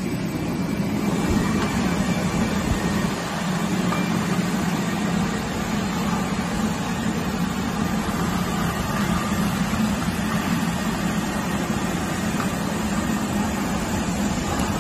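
CGFD12-12-6 carbonated-drink rinsing-filling-capping machine running in production, a steady low hum under an even hiss.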